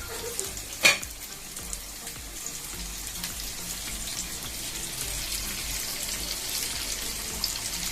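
Basmati rice and onion frying in hot oil in a pot, a steady sizzle that grows slightly louder, with a single sharp knock about a second in.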